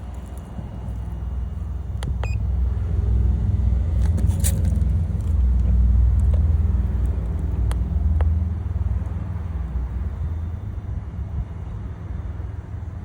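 Low rumble of a car engine running close by, swelling in the middle and easing off, with a few sharp clicks over it.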